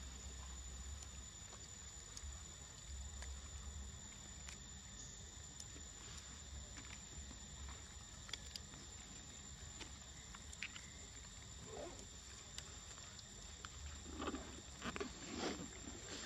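Faint outdoor ambience with a steady high-pitched insect drone and scattered soft clicks, then a few short louder sounds near the end.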